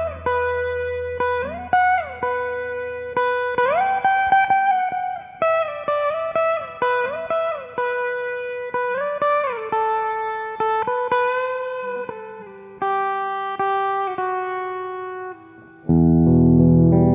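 Electric guitar played through a simulated Fender Deluxe amp in Amplitube 5, picking a single-note melody with string bends. A louder, fuller chord rings out near the end.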